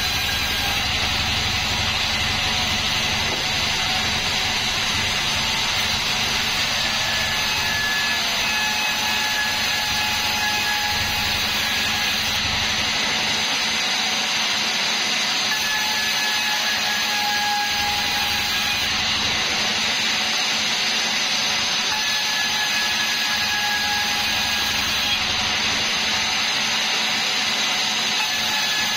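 Bandsaw 36 band sawmill running with its blade cutting lengthwise through a bayur log, a steady sawing noise with a faint whine that comes and goes every few seconds.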